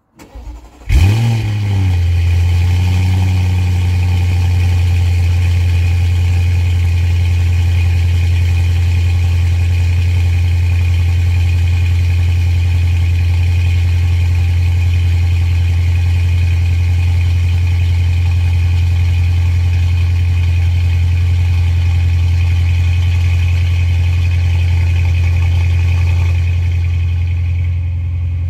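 2016 Audi RS7's twin-turbo V8 starting from cold, heard at the exhaust tip: a brief crank, then the engine catches with a rev flare about a second in and settles into a steady cold idle. Near the end the idle drops slightly and quietens.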